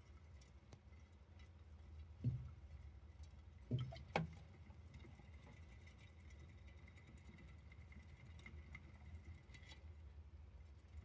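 Roborovski hamster moving about its cage, with light pattering and ticking and three dull knocks, one about two seconds in and two close together about four seconds in.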